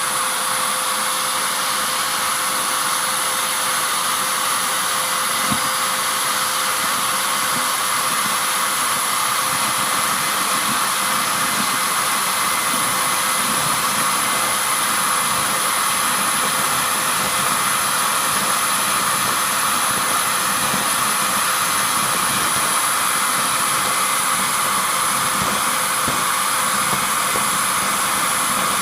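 Vacuum cleaner humming steadily at a constant pitch.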